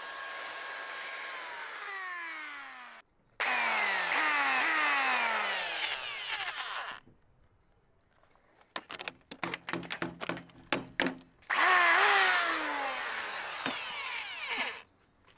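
Handheld electric power planer cutting a wooden beam in two passes. Its motor pitch repeatedly sags as the blades bite and recovers between, and it winds down after each run. Between the passes come a quick series of sharp clicks and knocks.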